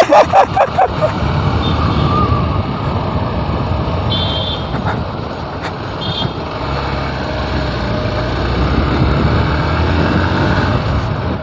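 Motorcycle being ridden through traffic, with steady engine and road noise and other motorbikes around it. In the first second a fast run of loud pulsing tones fades out, and two short high beeps come about four and six seconds in.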